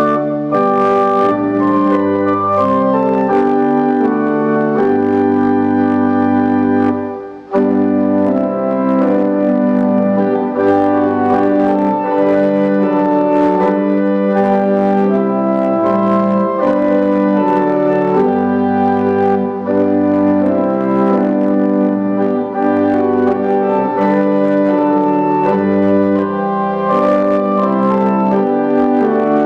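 Pipe organ playing the postlude: full sustained chords over changing pedal bass notes, with a brief break about seven seconds in.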